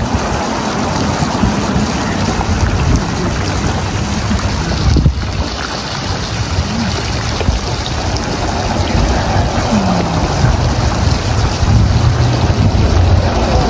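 Wind buffeting the microphone, over the steady wash of water in a shallow outdoor wading pool.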